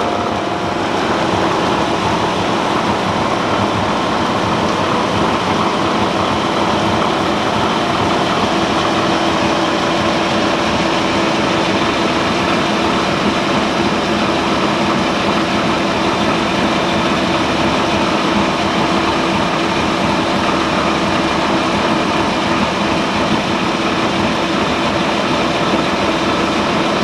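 Triple roller mill running steadily, grinding pigment into boiled linseed oil: a continuous machine hum with one steady tone.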